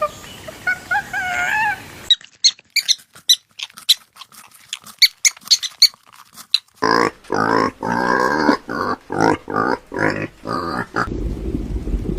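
A run of different animal calls: a few pitched, bending meow-like calls in the first two seconds, then a long series of very short, sharp high chirps, then several seconds of harsh, pulsing squeals and grunts. A steady low rumble sets in near the end.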